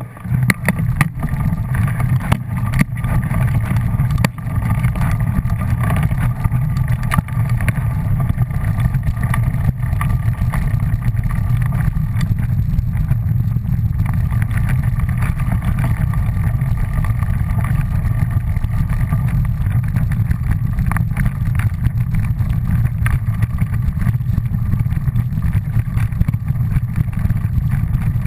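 Steady low rumble of a vehicle ridden fast along a leaf-covered dirt trail, with a few sharp knocks from bumps in the track.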